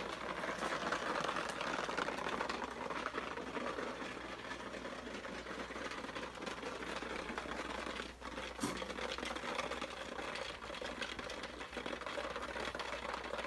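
Small RC-car wheel bearings rattling and swishing inside a plastic bottle of cleaning alcohol as it is shaken continuously to wash the dirt out of them. There is a short pause about two thirds of the way through, and a low steady hum runs underneath.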